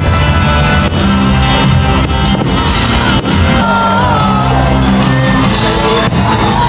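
Loud Christmas fireworks-show soundtrack music playing steadily.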